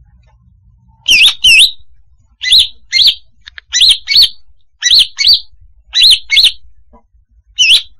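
Female leafbird (cucak hijau) calling: short clear whistled notes in pairs, five pairs about a second apart, then a single note near the end. It is a lure call for attracting leafbirds.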